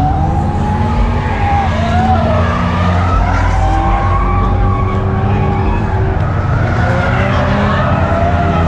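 Car tires squealing in long, wavering tones over the steady sound of running engines.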